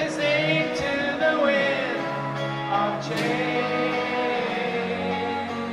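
Live rock band playing a ballad, with a male lead voice singing over the instruments.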